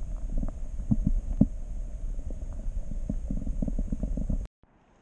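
Muffled underwater sound of stream water moving around a submerged camera: a dense low rumble with irregular dull knocks and thumps. It cuts off suddenly about four and a half seconds in.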